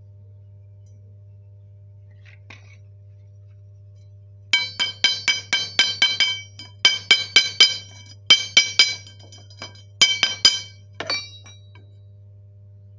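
Chipping hammer striking a fresh stick weld on a steel square tube to knock off the slag. Quick runs of sharp metallic taps, each ringing briefly, come in about four bursts from about a third of the way in, over a steady low hum.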